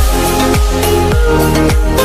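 Background electronic dance music with a steady kick-drum beat, a little under two beats a second, over sustained bass notes.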